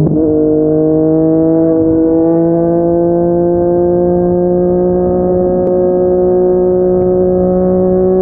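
Yamaha MT-09's three-cylinder engine through a Yoshimura R55 slip-on exhaust, pulling in one gear under steady acceleration, its exhaust note rising slowly and evenly in pitch.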